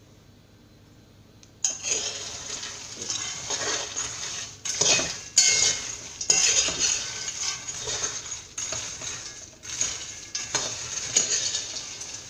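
Parching cocoa beans being stirred around a pot, a steady run of scraping and rattling strokes that starts about one and a half seconds in; the stirring keeps the beans from burning as they roast.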